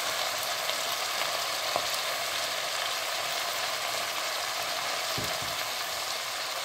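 Hot oil with frying onions, chillies and garlic sizzling steadily in a stainless steel pot under a heap of freshly added watercress, with a light tap about two seconds in.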